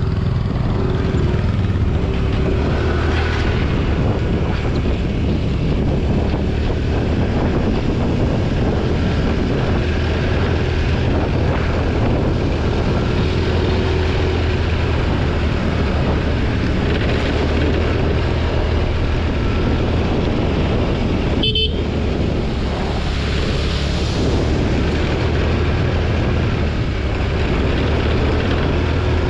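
TVS Jupiter scooter on the move, its small engine running steadily under road noise, with one very short beep about three-quarters of the way through.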